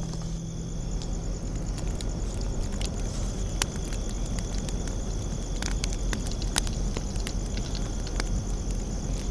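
Fire crackling: a steady low rumble of burning with sharp, irregular pops and snaps scattered through it.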